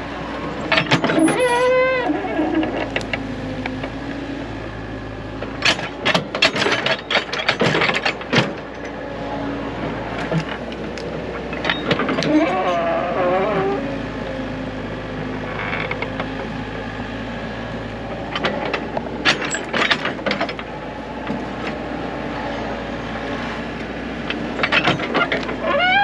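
Hydraulic excavator running steadily while its bucket digs a trench in soil, with clusters of sharp knocks and scrapes from the bucket and boom. A few short wavering tones sound over it, about a second in, around the middle and at the end.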